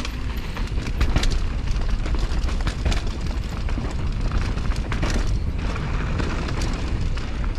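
Wind buffeting the microphone of a camera riding on a mountain bike at speed downhill, a constant deep rumble, with the rattle and knocks of the bike and its tyres going over dirt, rocks and roots.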